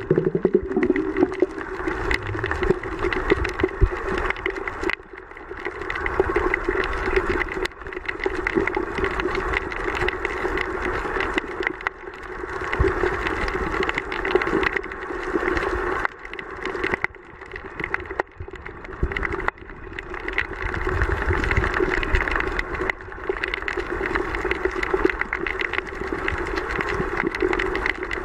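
Underwater sound picked up by the camera: a steady low hum under a rushing hiss that swells and fades every few seconds.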